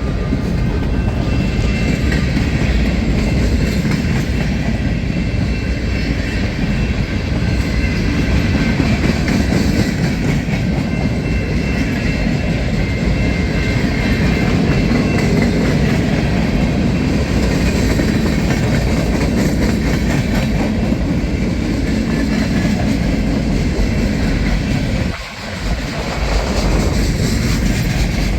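Train passing close by: a steady loud rumble of rail cars rolling on the track, with faint high tones from the wheels, and a brief dip in the noise about 25 seconds in.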